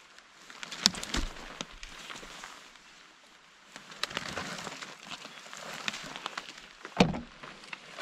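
Rustling of a rain poncho and plastic tarp as they are handled, broken by sharp clicks and two louder knocks, one about a second in and one near the end.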